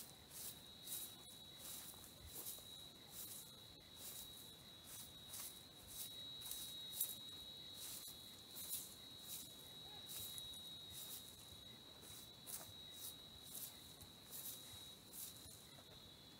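Broom sweeping dry, sandy dirt in short scratchy strokes, about two a second, over a steady high insect drone.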